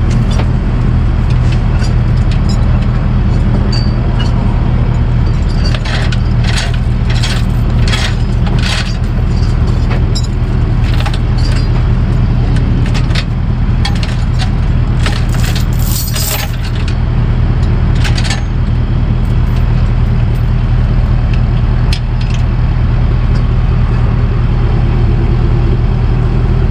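Steady low drone of a tow truck running down the road, heard from inside the cab. A run of light metallic clicks and jingles comes in and out between about 6 and 18 seconds in.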